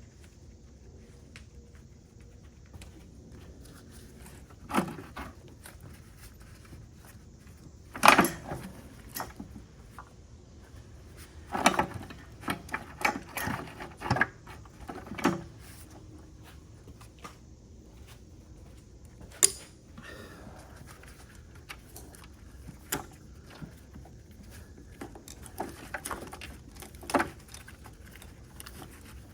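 Scattered knocks and clatters of hands and tools working a plastic intake manifold loose in an engine bay. The loudest knock comes about eight seconds in, with a run of several knocks a few seconds later and single ones now and then.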